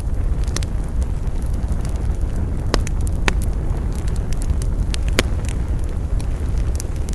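Wood campfire burning with a steady low rumble and scattered crackles and pops, a few sharper pops standing out.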